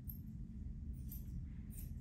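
A few faint, light snipping clicks from hand grooming on a small dog's coat, three in all, over a steady low rumble of room noise.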